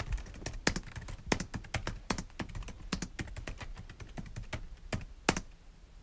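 Typing on a computer keyboard: quick, irregular key clicks that start suddenly and run on steadily, with a few louder keystrokes among them.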